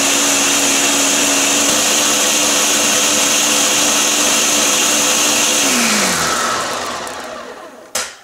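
Countertop blender running steadily at full speed, blending pomegranate seeds and beetroot pieces into juice. About six seconds in it is switched off and the motor spins down, its pitch falling as the sound dies away. A short knock near the end.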